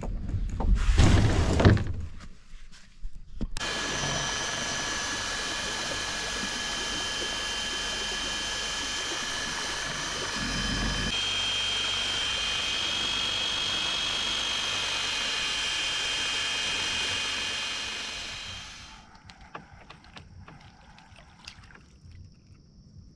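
Electric trolling motor on a kayak running steadily with a high whine, fading out about nineteen seconds in. A loud rough rush comes about a second in, before the motor starts, and faint ticks follow once it stops.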